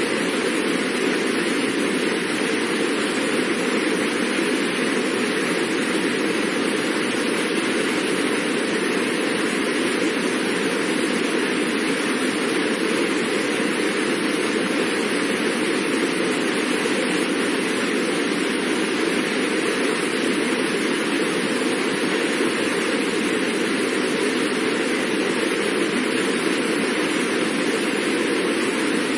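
Fast-moving water rushing, a steady, even noise that does not change.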